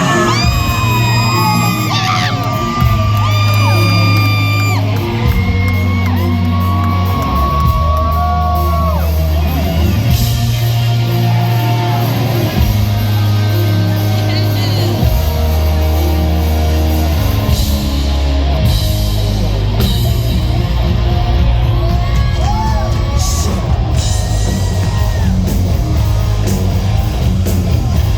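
Live hard rock band playing loud in a big hall: electric guitar lines sliding in pitch over held bass notes and drums, with shouted, screamed vocals over the top. The drumming gets denser about two-thirds of the way in.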